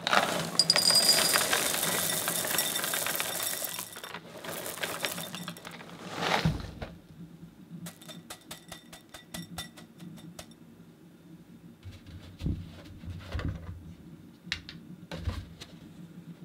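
Dry Cheerios poured into a bowl, a dense rattle for about four seconds, then a shorter pour. A thump follows about six seconds in, then a run of sharp clicks and scattered clinks of dishware.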